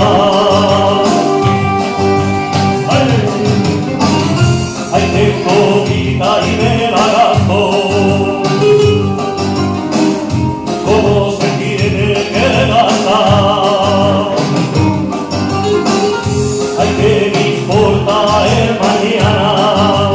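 Male singer performing a Spanish rumba song live into a microphone over a recorded backing track through PA speakers.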